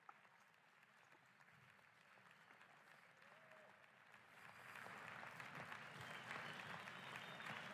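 Near silence, then quiet applause of many hands clapping fades in about halfway through and keeps going.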